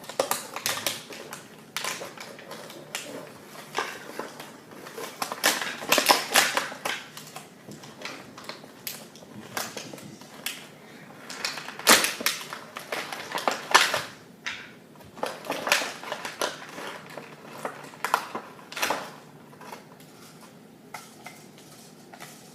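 Hands handling a Nerf Rival Apollo blaster and its packaging during unboxing: irregular clicks, knocks and rustling, with a few sharper clacks about six, twelve and fourteen seconds in.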